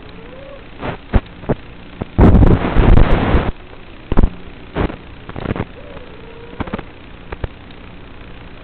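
A 3D freestyle quadcopter's brushless motors and 5-inch props, heard from on board over a steady hiss. The throttle is punched in short sharp surges, with one loud burst lasting about a second and a half a couple of seconds in.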